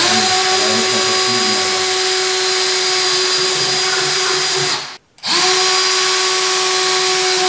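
Cordless drill running at a steady speed with a constant whine, held against the underside of a car's rear bumper. It runs for about five seconds, stops briefly, then starts again.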